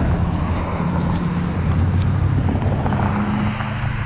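Motor vehicle traffic: a steady low engine drone from vehicles on the road, with a slight shift in pitch about three seconds in.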